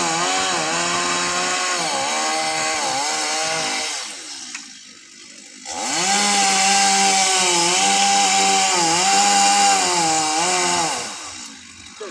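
Chainsaw running at full throttle while cutting coconut tree wood, its pitch dipping briefly several times as it takes load. It drops back about four seconds in, then runs up again for about five seconds before easing off near the end.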